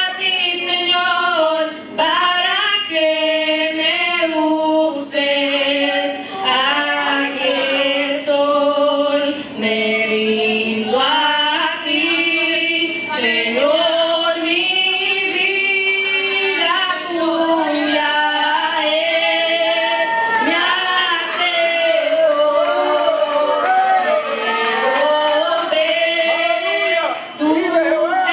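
A group of mostly women's voices singing a slow Spanish-language worship song together without instruments, holding long notes that glide between pitches, carried through microphones.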